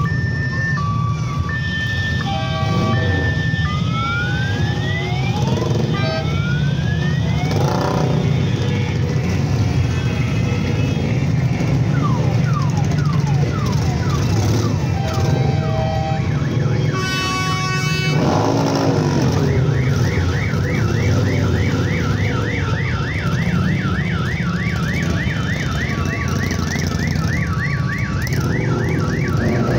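Several cruiser motorcycles riding past in slow procession, their engines rumbling steadily, overlaid by electronic siren and alarm tones: alternating two-tone beeping at first, slow wailing glides, a short loud horn blast a little past halfway, then a fast rising yelp repeating about three times a second until near the end.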